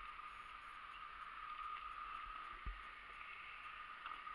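2008 Honda Nighthawk 250 idling, heard faintly as a steady hum, with one low thump of wind on the microphone about two and a half seconds in.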